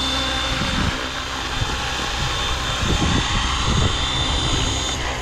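Blade Fusion 550 electric RC helicopter running, its main rotor and brushless motor making a steady drone with a high whine as it sets down, its main blades out of track. The whine stops near the end.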